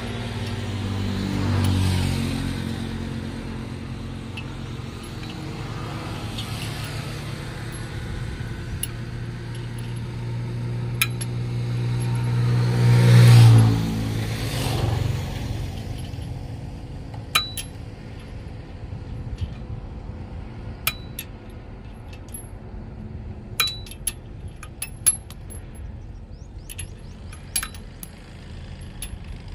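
A motor vehicle's engine rising to its loudest about 13 seconds in, then fading away. Over the second half comes a scattered series of sharp metallic clinks.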